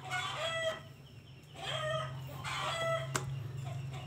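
Free-range village roosters crowing, about four crows in a row from more than one bird, over a low steady hum, with a single sharp click about three seconds in.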